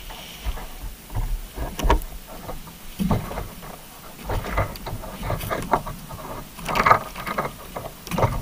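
Irregular knocks, bumps and scrapes picked up through an underwater camera housing as small sharks jostle against the camera rig. The loudest clusters come about three seconds in and near the end.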